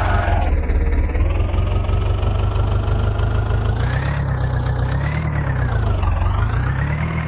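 Heavy diesel engine running under changing throttle, its pitch rising and falling several times, with a whine that climbs and drops along with it.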